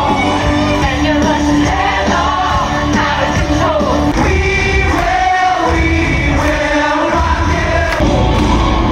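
Music from a stage-musical dance number: a pop song with singing over a steady beat.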